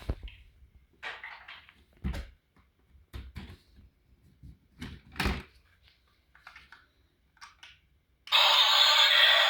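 Plastic toy vehicles being handled: scattered clicks, knocks and light rattles. Near the end a toy's loud, steady electronic sound effect switches on abruptly.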